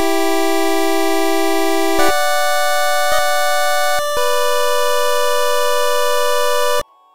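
Electronic synthesizer music: sustained, unwavering chords that change about every two seconds, cutting out abruptly near the end.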